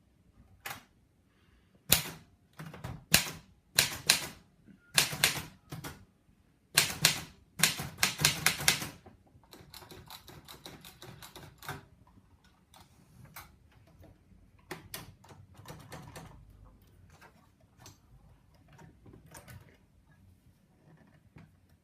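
Erika portable manual typewriter being typed on: loud, irregular key strikes clacking against the platen, then a softer rustling stretch and quieter, sparser clicks.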